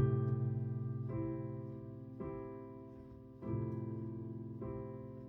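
Piano accompaniment playing slow chords, one struck about every second and left to ring and fade.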